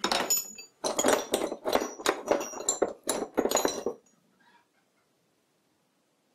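Steel lathe tool bits and a tool holder clinking and clattering against each other in a wooden drawer as a hand picks through them. A quick run of metallic clinks that stops about four seconds in.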